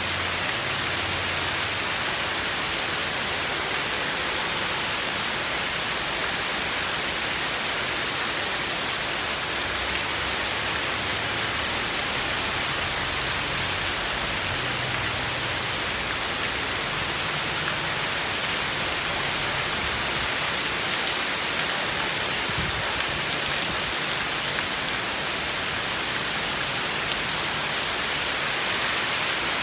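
Heavy rain falling steadily on trees and a paved driveway: a dense, even hiss that holds constant throughout.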